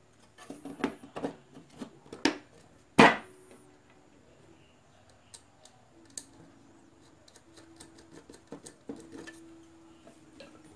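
Plastic impeller of a small electric air blower being handled and pressed onto its motor shaft inside the plastic housing: a quick run of clicks and knocks, the loudest about three seconds in, then scattered light ticks.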